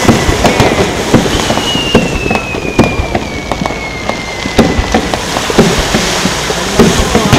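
Aerial fireworks going off: a dense, irregular run of pops and crackles, with a long whistle that slides slowly down in pitch from about one to five seconds in.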